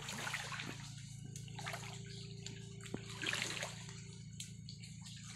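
Creek water sloshing and splashing in a few short bursts, over a steady low hum.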